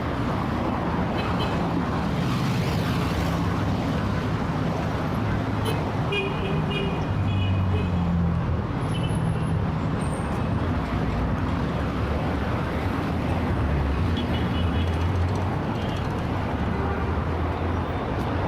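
Heavy city traffic in a jam: a dense, steady rumble of engines and tyres, with short car-horn toots about six seconds in and again around fifteen seconds.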